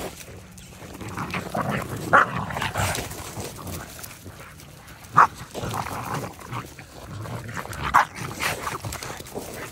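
Boston Terriers vocalising while play-fighting: a run of short barks and yips, the sharpest about two, five and eight seconds in.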